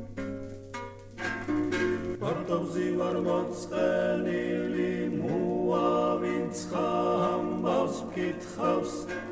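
Traditional Georgian polyphonic choral music: a plucked string instrument alone at first, then a group of voices comes in about two seconds in, singing long held chords in several parts.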